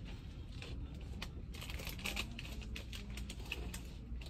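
Handling noise: light crinkling rustles and scattered small clicks over a low steady background hum.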